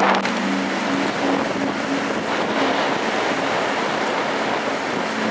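Wind rushing over the microphone along with the wash of water, a steady noisy rush with a faint on-and-off low hum beneath it.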